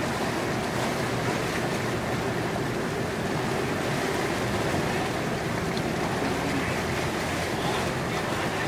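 Steady rush of water and wind noise, with a low, even hum underneath.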